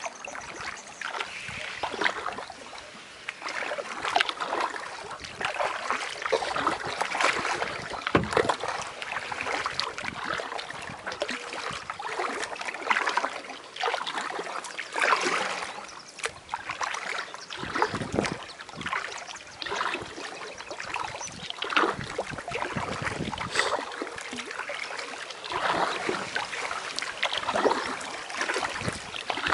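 Kayak paddle strokes dipping and splashing in calm water, one every second or two, with water trickling off the blades between strokes.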